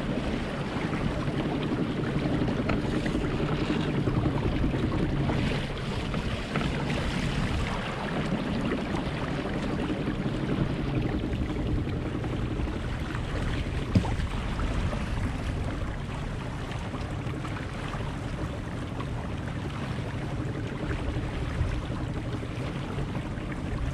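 Wind and water rushing along the hull of an Impulse 26 sailboat under sail, as a steady wash, with a single sharp knock about fourteen seconds in.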